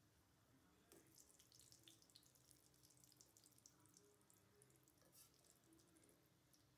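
Faint sizzling and crackling of egg pitha pieces deep-frying in hot oil in a steel karahi, the crackle picking up about a second in.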